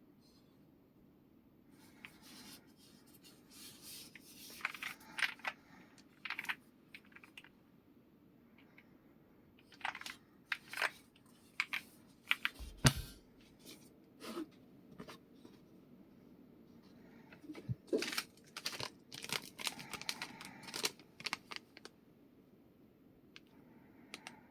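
Packaging being handled and opened: irregular tearing, crinkling and rustling of cardboard and plastic, with a single thump about halfway through as something is set down or knocked.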